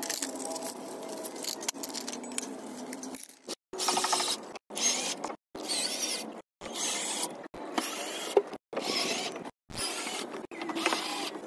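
Bolts being handled and clinking in their plastic bag, then a cordless drill-driver running in short bursts as it drives bolts into a steel roof-rack panel. Each burst cuts off abruptly into silence.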